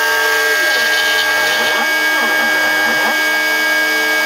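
Homemade CNC router engraving Plexiglas: the spindle runs with a steady high whine while the stepper motors hum in tones that glide up and down as the axes speed up, slow and change direction. One held pair of stepper tones stops about half a second in and returns near the end.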